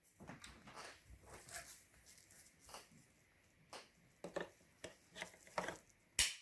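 Irregular handling noises: light clicks, taps and rustles, with one sharp click near the end.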